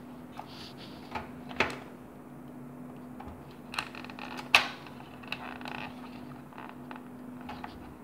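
Hand handling inside a desktop PC case while reaching in to remove the graphics card: scattered clicks and knocks of plastic and sheet-metal parts, the sharpest about four and a half seconds in. A low steady hum sits underneath.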